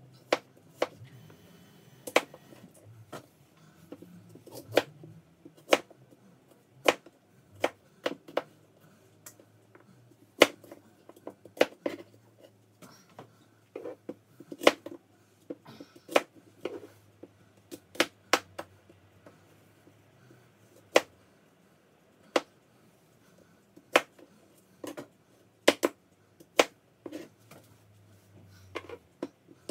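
Kitchen knife cutting apples on a cutting board: sharp, irregular knocks as the blade strikes the board, about one a second and sometimes two in quick succession. Under them runs a faint low hum that stops near the end.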